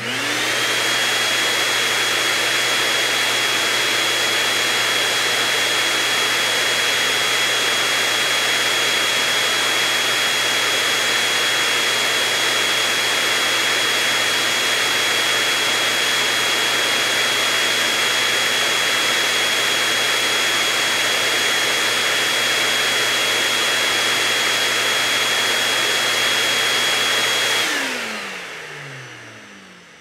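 Vacuum cleaner switched on, its motor whining up to speed and then running steadily with a high whine over a rush of air. Near the end it is switched off and spins down, its pitch falling as it fades.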